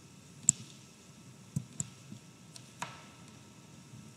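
About five short, sharp computer mouse clicks, a second or so apart, over a faint steady hum.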